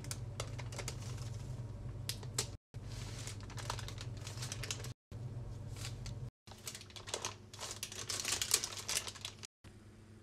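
Baking paper crinkling and rustling, with quick light clicks, as a cream-filled crepe is rolled up on it by hand. The crackle is densest in the second half. A steady low hum sits under the first half, and the sound is broken by a few brief drops to silence.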